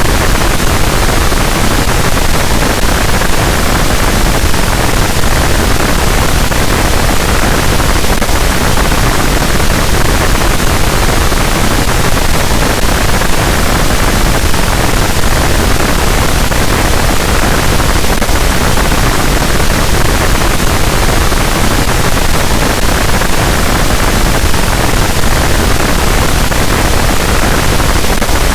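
Harsh noise wall: a loud, unchanging wall of dense static noise filling the whole range from deep bass to high hiss, with no rhythm or pitch.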